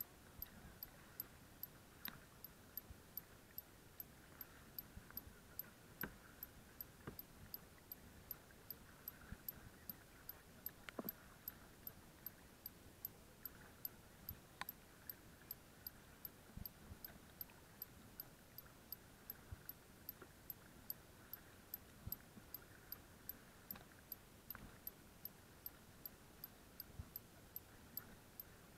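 Near silence, broken by faint irregular knocks and taps, one or two a second, from paddling a sit-on-top kayak: the paddle working and water slapping the hull. A faint, fast, even ticking sits high above it.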